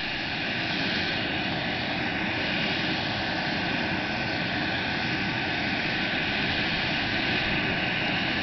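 Gulfstream business jet's engines running at taxi power as it rolls by: a steady jet rush with a faint steady whine.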